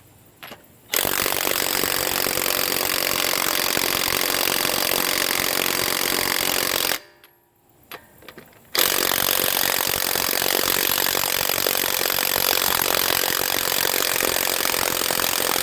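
HANS 1/2-inch cordless electric impact wrench hammering on a car's front-wheel lug nuts in two long runs of about six and seven seconds, with a short break between. It sounds like it's struggling, which the owner puts down to a battery that may need charging.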